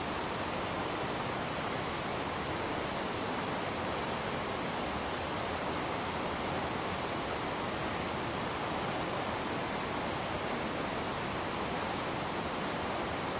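Steady rush of a shallow river running over rocks, an even hiss with no distinct splashes.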